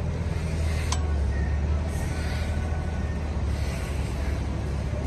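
Battery-electric vehicle chassis's drive system running with a steady low hum while its joystick controller is worked, with a single sharp click about a second in.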